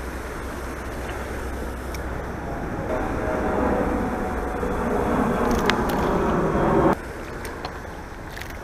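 Jet airliner passing low overhead: a rushing noise with a faint whine builds over several seconds, then drops away abruptly near the end.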